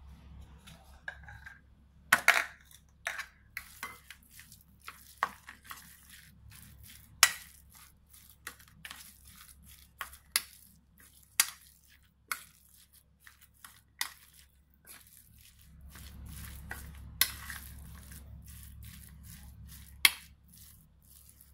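Ground pork filling being mixed in a stainless steel bowl: irregular sharp clinks of metal against the bowl, several much louder than the rest, with soft squelching of the wet meat. Near the end the mixing turns into a steadier, fuller squishing for a few seconds.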